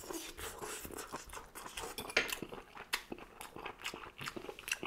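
Close-up chewing of squid tagine: a run of wet mouth clicks and light crunches.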